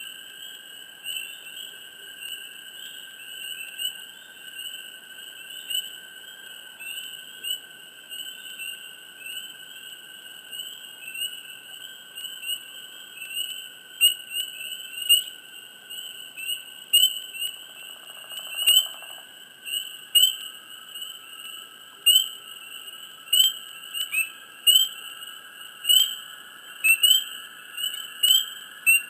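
Frogs chirping in a swamp chorus: short, repeated chirps over a steady background trill. The chirps come louder and closer together in the second half.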